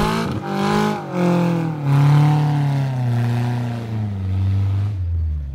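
Maruti Gypsy off-road 4x4's engine revved hard under load, rising and falling in short bursts for about two seconds, then running at high revs that slowly sag as it pulls up a steep dirt climb.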